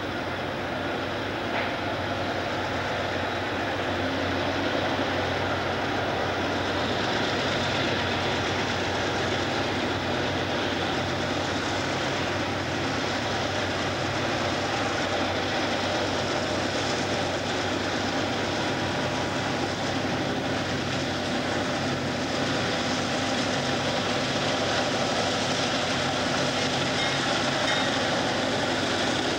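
A freight train passing close by: several diesel-electric locomotives running under power, with the steady low hum of the engines over the rumble and clatter of wheels on rail, and covered hopper cars rolling behind the last unit.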